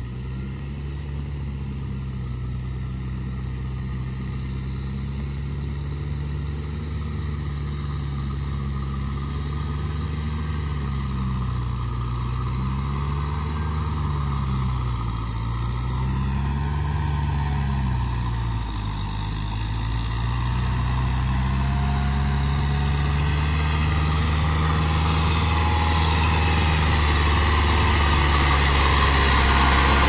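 Kubota M6040 SU tractor's diesel engine running under load as it tills a flooded rice field, its pitch sagging and recovering a few times midway. The engine grows steadily louder as the tractor closes in.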